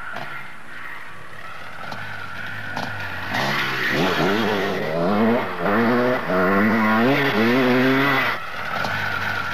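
KTM enduro motorcycle ridden off-road, its engine revving up and down over and over as the throttle is worked. It gets louder about three seconds in and drops back shortly before the end.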